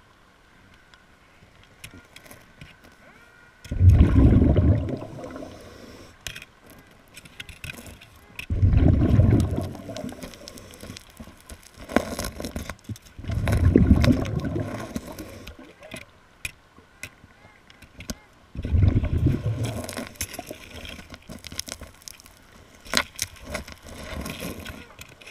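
A scuba diver's exhaled bubbles leave the regulator underwater in four long bubbling rushes, about five seconds apart, one with each breath. Between them come small clicks and scrapes from a gloved hand digging in sand and shell grit.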